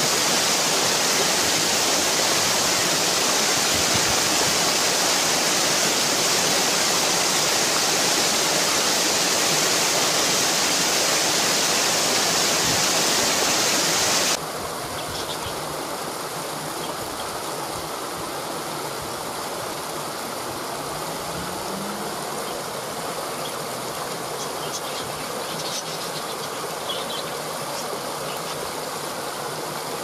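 Steady rushing of water tumbling down a rocky stream cascade. About halfway through it cuts abruptly to a quieter, softer rush of a small stream waterfall.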